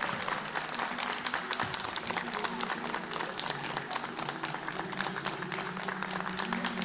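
Audience clapping steadily, dense and continuous, with sustained low music tones underneath.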